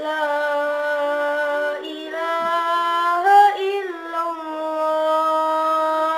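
A boy's high voice chanting the adhan, the Islamic call to prayer, in long held melodic phrases with an ornamented run of quick pitch turns in the middle and a long sustained note at the end.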